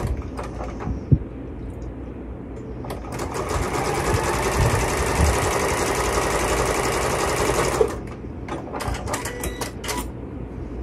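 Domestic sewing machine stitching a seam through quilt block pieces. It starts about three seconds in, runs steadily for about five seconds with a fast even needle rhythm, and stops abruptly. A few light clicks come before and after it, as the fabric is handled.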